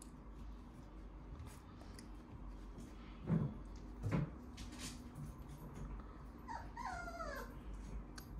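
Shiba Inu puppy gnawing on a spiky rubber chew toy, with faint scattered clicks and two dull thumps a little under a second apart, about three seconds in. Near the end the puppy gives a short, wavering whimper that falls in pitch.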